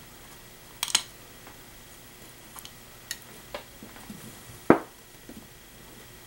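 Scattered handling clicks and clinks from the metal housing of a Bestline AL-500P power feed as the loosened motor is worked out of it. There is a brief clatter about a second in and one louder clunk near the end.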